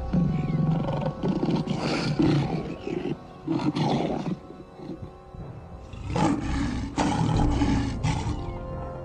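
Lion growling and snarling in several rough bursts, over background music with steady held notes.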